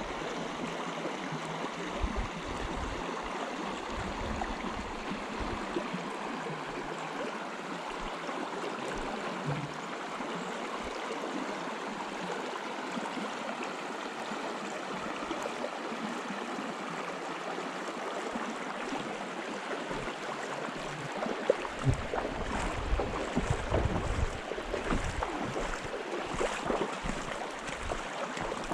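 Small river running, a steady rush of moving water. From about two-thirds of the way in, irregular low thumps and knocks come in over it.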